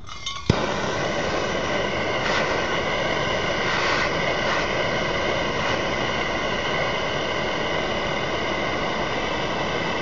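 A gas torch lights with a sharp pop about half a second in, then burns with a steady roaring hiss, its blue flame heating the eye of a leaf spring to burn out the old metal.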